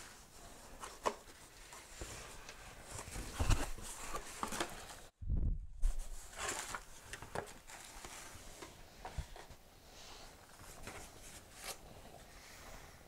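Hands opening a cardboard shipping box and handling the packing inside: flaps rustling and scraping, with scattered taps and knocks, the loudest a thump about three and a half seconds in.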